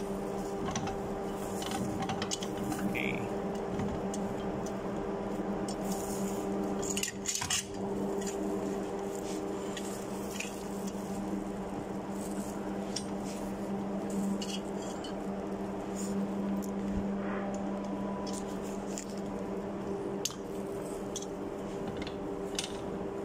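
Scattered metal clinks and knocks of globe valve parts being handled and fitted together in a bench vise, over a steady machinery hum.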